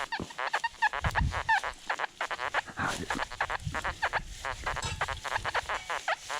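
A flock of geese honking: many short, overlapping calls, several a second.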